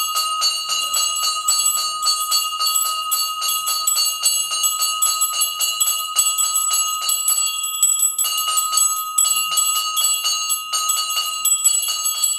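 A bell rung rapidly and without let-up, about four to five strokes a second, its ring carrying on between strokes. There is a brief break near the middle.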